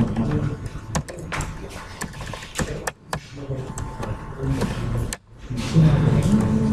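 Indistinct low voices talking, with scattered sharp clicks of a computer keyboard and mouse.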